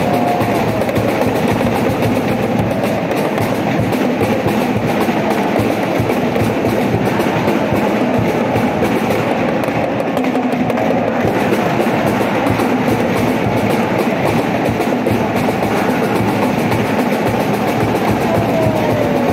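Large crowd of school basketball supporters chanting and singing together, a steady, continuous din that fills the big sports hall.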